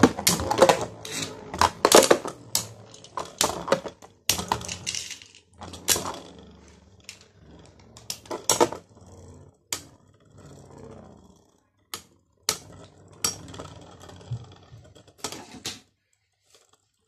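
A Zero-G metal Beyblade and a Beyblade Burst top spinning and clashing in a plastic stadium: a quick run of sharp clacks in the first few seconds, then scattered knocks as they circle and hit each other, dying away near the end.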